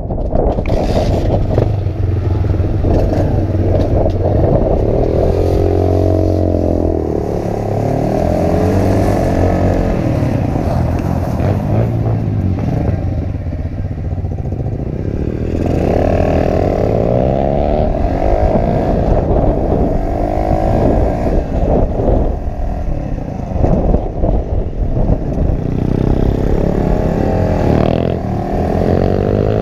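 Pit bike engine under way, its pitch rising and falling again and again as the throttle opens and closes.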